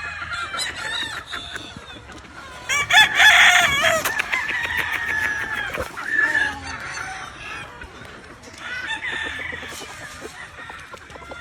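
Gamefowl roosters crowing among clucking chickens, with the loudest crow about three seconds in and further calls near the middle and end.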